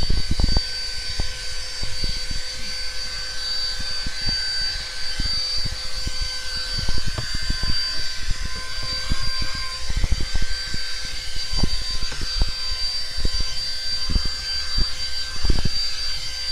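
Handheld car vacuum cleaner running steadily with a high motor whine and hiss of airflow as it sucks ground coffee out of the car's floor carpet, with irregular knocks and scrapes as the nozzle is pushed over the carpet.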